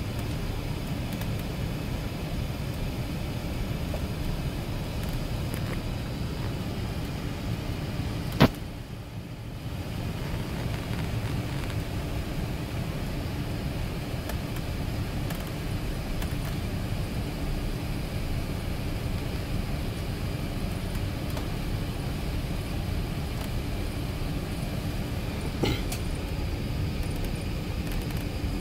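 Airbus A380 cabin noise while taxiing: a steady low rumble of the engines and airframe, with faint steady tones above it. A sharp click about eight seconds in is followed by a brief dip in the noise, and a fainter click comes near the end.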